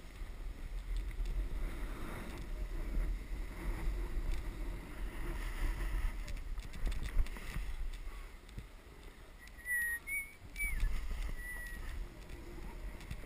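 Snowboard sliding and scraping over groomed snow, with wind buffeting the microphone as a steady low rumble. A few short high whistle-like notes sound about ten seconds in.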